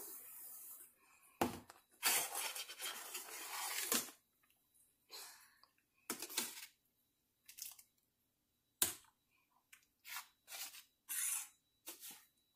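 Steel ladle stirring and scraping semolina through boiling water in a stainless steel pan. The scraping comes as one stretch of about two seconds, then short scrapes at irregular intervals, with a couple of sharp metal clicks against the pan.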